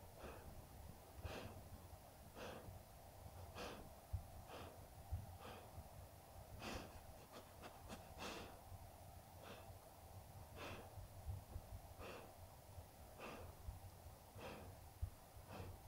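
A sleeping golden retriever breathing softly, its faint breaths coming about once a second, over a low steady hum.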